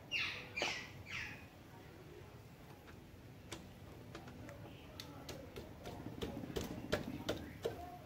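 Wrench with a 12 mm socket working the oil drain bolt under a Yamaha Grande scooter's engine: a few short squeaks near the start, then a run of sharp metal clicks, about three a second, in the second half.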